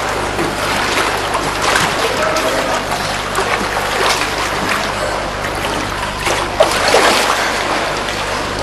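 Pool water splashing and sloshing as a swimmer strokes through it and reaches the ladder, with a sharper splash about two-thirds of the way through, over a steady low hum.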